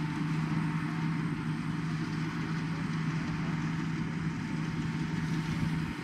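Combine harvester running steadily: a constant engine drone with a hiss over it.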